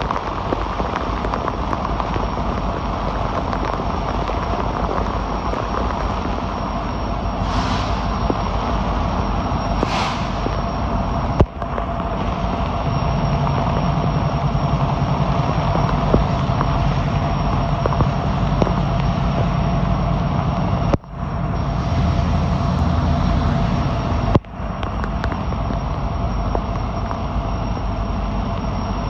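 Heavy rain of a severe thunderstorm pouring down in a dense, steady roar, with a crackle of drops striking close by and wind swelling a couple of times. A low rumble joins in the middle, and the sound cuts out briefly three times with a click.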